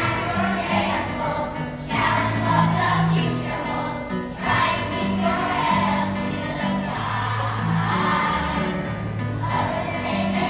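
A large children's choir singing together.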